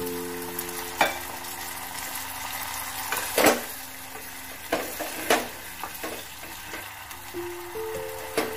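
Sauce with freshly added water sizzling in a nonstick saucepan as it is stirred with a spoon. A few sharp knocks of the spoon against the pan cut through, the loudest about three and a half seconds in.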